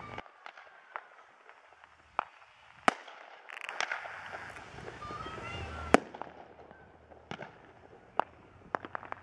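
Distant consumer fireworks going off around a neighbourhood: scattered sharp bangs and pops at uneven intervals, the loudest about six seconds in. A hissing stretch runs through the middle.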